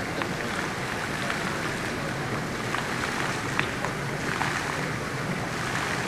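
Indoor fountain with thin water jets arcing onto a flat stone surface: a steady splashing rush with a few sharper splats of falling water.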